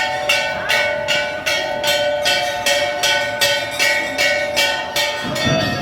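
Metal temple bell rung rapidly and evenly, between two and three strikes a second, its ringing tone held under the strikes; the strokes stop about five seconds in.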